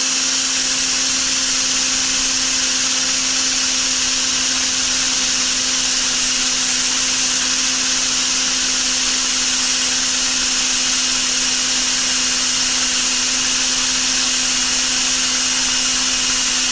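Ridgid cordless drill running at a constant, deliberately slow speed as its long twist bit bores through a rubber hockey puck held in a vise. A steady motor hum with a hiss over it, unchanging throughout.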